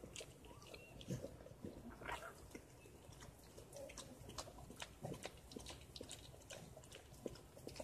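Mother dog licking and mouthing her newborn puppy: faint, irregular wet smacks and clicks.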